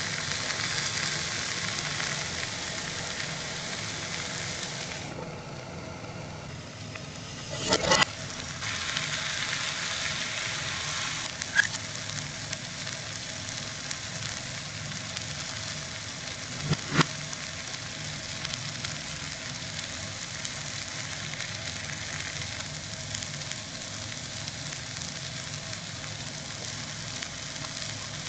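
Vegetables frying in a pan, with the audio played backwards: a steady sizzle, broken by a few sharp knocks about eight, twelve and seventeen seconds in.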